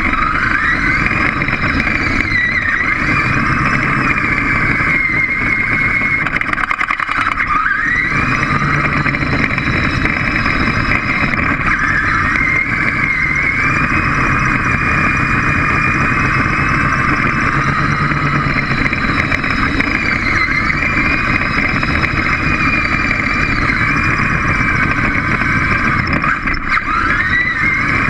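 A small robot's electric drive motors whining, the pitch climbing and dropping as the robot speeds up, slows and turns, dipping and rising again several times, over a steady low rumble.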